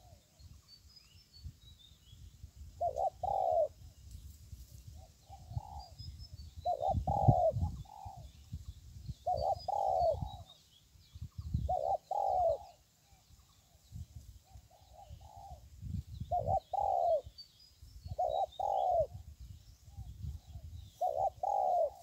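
A bird cooing over and over, in paired, arching coos that repeat every couple of seconds, with faint runs of high chirping from small birds behind.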